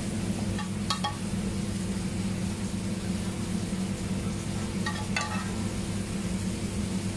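Steady low machine hum with two short metallic clinks, about a second in and about five seconds in, from a metal spoon touching a plate as wine sauce is spooned over a fish fillet.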